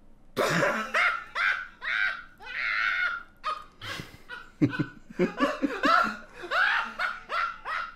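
A man laughing hard and loudly. It breaks out suddenly about half a second in as a run of high, rising-and-falling whoops several a second, with a brief catch of breath near the middle.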